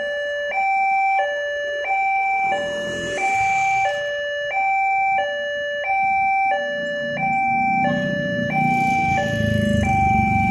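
Railway level-crossing warning signal sounding its electronic two-tone alarm, alternating steadily between a higher and a lower note about every two-thirds of a second, warning that a train is approaching. A low engine rumble builds under it in the last few seconds.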